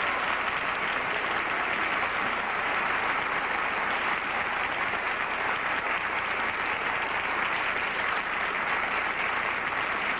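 Studio audience applauding steadily, a long unbroken round of clapping.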